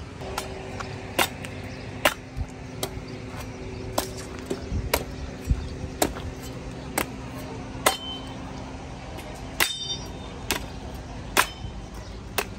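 Sharp clinks and knocks of hard objects, irregular, roughly one a second, a few ringing briefly, over a faint steady hum.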